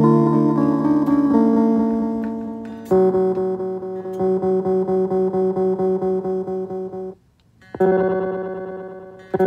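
Guitar played through a Donner Ultimate Delay pedal: chords ring on with echo repeats. One chord struck about three seconds in pulses evenly about four times a second, then cuts off suddenly a little after seven seconds. A new chord then rings and fades as the pedal's delay settings are switched.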